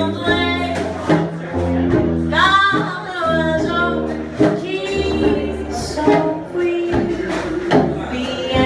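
Small traditional jazz band playing live: a tuba bass line under clarinet and brass, with guitar and drums keeping time and a woman singing.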